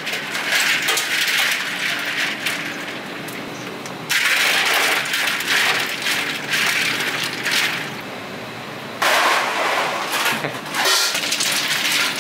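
Water splashing in a stainless steel sink and bowl as plastic bags of hot sauce are pressed down into it to chill, the plastic crinkling, in spells that start suddenly. Near the end, ice cubes clatter as they are tipped into the bowl.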